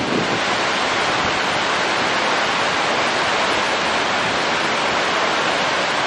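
Steady, loud rush of a waterfall pouring into its pool, with churning water close to a camera held at the water's surface.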